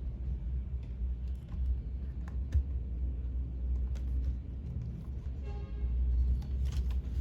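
Faint clicks and taps of parts being handled inside an opened laptop while its hard disk is lifted out, over a low steady rumble, with one sharper tap about two and a half seconds in.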